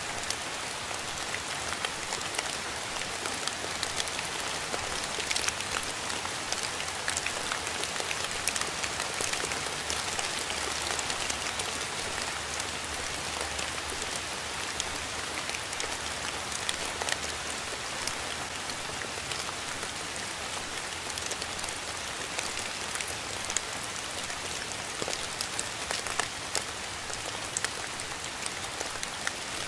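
Steady rain: an even hiss of falling rain with many separate drops striking close by.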